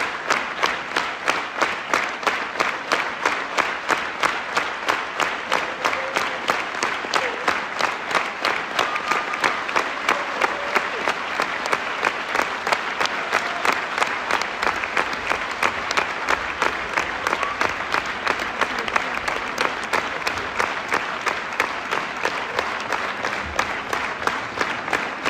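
Theatre audience applauding, clapping together in a steady rhythm of about three claps a second.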